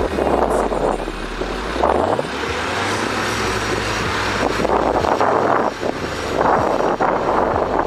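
Heavy machine's diesel engine running and revving up about two seconds in, then holding at the higher speed, with repeated bursts of wind noise on the microphone.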